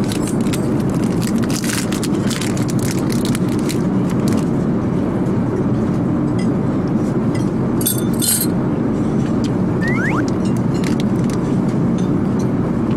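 Steady rumbling road or vehicle noise, like a car moving through traffic, with scattered small clicks and one brief chirp-like glide about ten seconds in.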